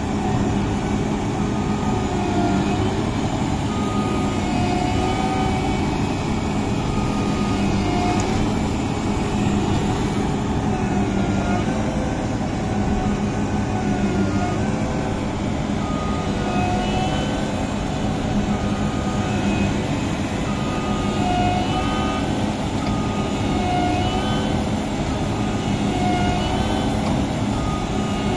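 Massey Ferguson CS6050 combine harvester running steadily under load while harvesting rice, with short high-pitched squeals recurring every second or two over its engine drone.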